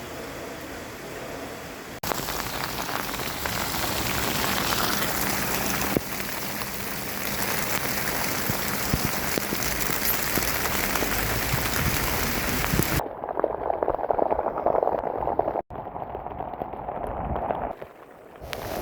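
Heavy rain falling and splashing as a dense steady hiss. About two seconds in it gets abruptly louder and brighter, and for several seconds near the end it turns muffled and dull before returning.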